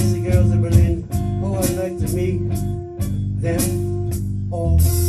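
Music with a steady beat, changing near the end to a long held chord.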